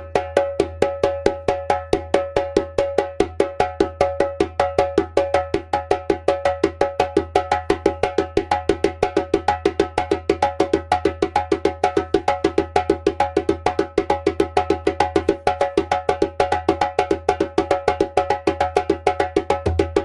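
Djembe played by hand: a fast, continuous run of sharp tone and slap strokes in the tone-slap-slap pattern, at full tempo.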